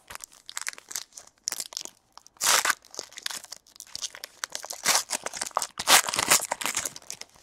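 A foil trading-card pack wrapper crinkling and tearing as it is ripped open by hand, in a run of crackles with louder rips about two and a half and six seconds in.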